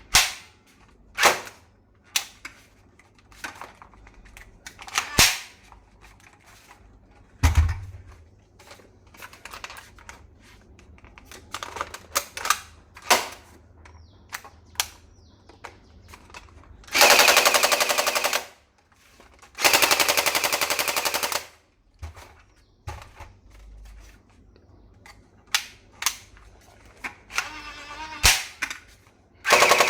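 Toy HK417 rifle firing: scattered single shots, then two rapid full-auto bursts of about two seconds each, around the middle.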